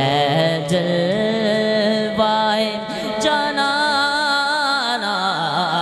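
Unaccompanied Urdu naat sung by male voices: a long ornamented phrase with wavering pitch, held over a lower sustained note that steps up and down.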